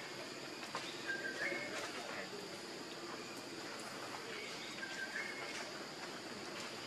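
Forest ambience: a bird gives a short two-note call, the second note higher, twice, over a steady high insect drone.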